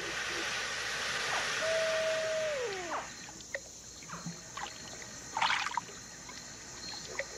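Water sloshing and trickling for about three seconds, with one drawn-out call from the baby alligator that slides down in pitch at its end. Then scattered small splashes and clicks, one louder splash about five and a half seconds in, over a steady chirring of crickets.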